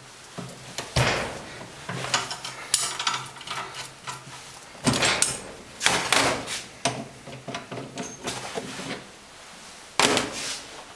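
Clanks, knocks and scraping of steel tools and injector parts being handled on a metal bench and clamping device while the nozzle nut of a DENSO common rail injector is taken off. Several separate knocks, the sharpest near the end, with rubbing and scraping between them.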